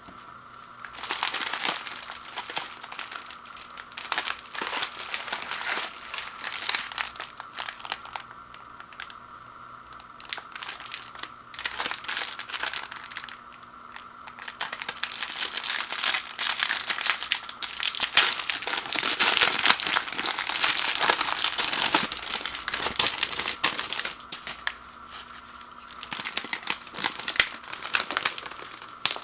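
Packaging of a box of microwave popcorn crinkling and tearing as it is opened and handled, in irregular bursts that are heaviest past the middle.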